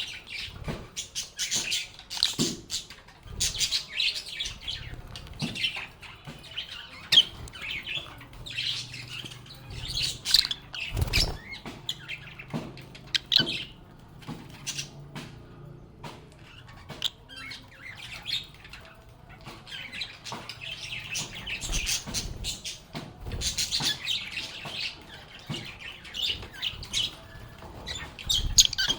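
Lovebirds chirping and chattering: a busy, continuous run of high chirps with short pauses, mixed with occasional sharp clicks.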